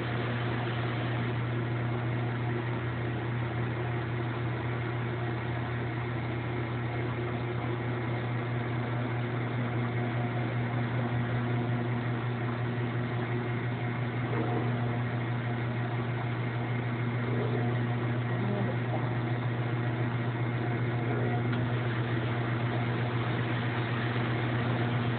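A washer running with a steady low machine hum.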